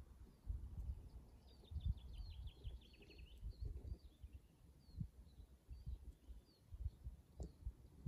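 A small songbird singing a quick trill of about ten falling notes about a second and a half in, with scattered single chirps, over a low, irregular thumping.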